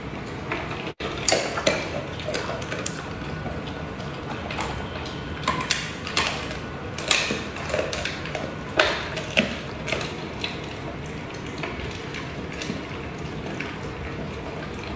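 A golden retriever and a husky eating from stainless-steel bowls: irregular crunching and chewing, with clinks of food against the metal, over a steady background hiss.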